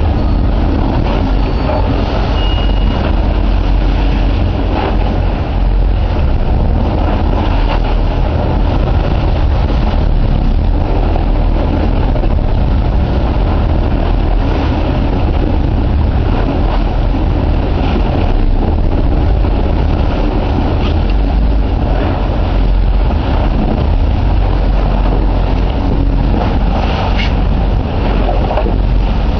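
A sportfishing boat's engines running steadily, a deep continuous rumble with wind and water noise over it.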